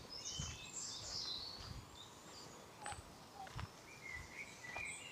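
Footsteps on a dirt woodland path, soft and evenly paced, with birds singing: a burst of high chirping song in the first second and a shorter call near the end.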